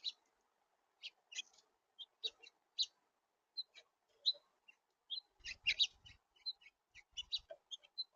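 Small birds chirping: many short, high call notes in quick irregular succession. A few low thumps come in the second half.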